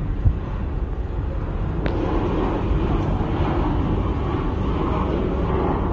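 Jet engines of a Japan Airlines Boeing 737 on final approach, a steady rushing drone that grows louder from about two seconds in as the airliner nears.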